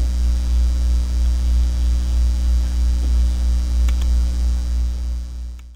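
Loud, steady electrical mains hum with its overtones, running under the recording; it fades and cuts off near the end. A faint tick about four seconds in.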